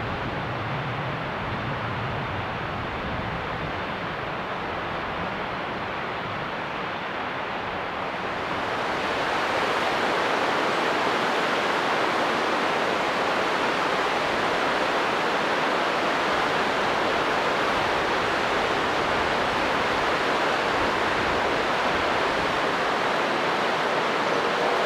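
Steady rushing noise like running water, with no rhythm or tones; it gets louder and brighter about eight seconds in.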